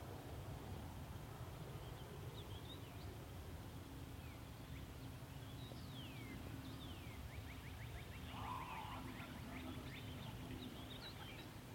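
Outdoor ambience: a low, steady background rumble with birds chirping, including a couple of falling whistles and a quick run of chirps in the middle. A faint steady hum comes in and fades again partway through.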